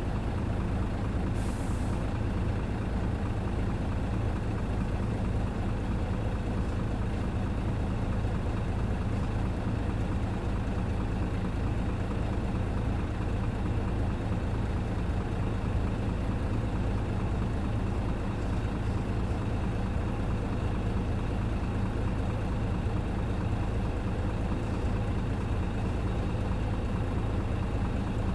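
Engine of a Hino KC-RU1JJAA short-body large bus running steadily with a low, even drone. There is a short burst of air hiss, as from the air brakes, about one and a half seconds in.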